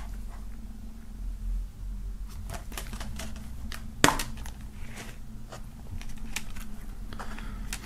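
Plastic DVD case being handled and prised open, with a sharp snap about four seconds in as the case opens and scattered light clicks and rattles of the case and discs.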